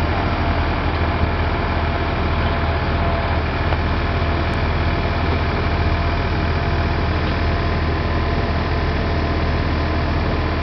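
Diesel tractor engine running steadily with a deep, even hum, without revving up or down.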